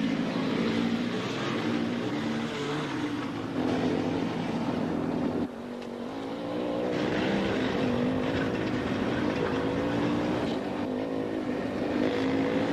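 Yamaha ATV engine running at speed, its note wavering up and down with the throttle. About five and a half seconds in it drops off suddenly, then comes back at a higher pitch.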